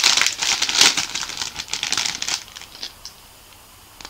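Wrapping crinkling and rustling in the hands as a small tree ornament is unwrapped, dense for about two and a half seconds, then dying down to a few light clicks.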